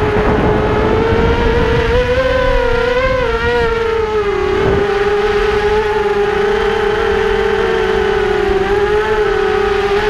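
Electric motor and propellers of an FPV model aircraft whining at a steady pitch; the pitch rises slightly, drops about four seconds in, then wavers with the throttle. Wind rush is mixed in at the start.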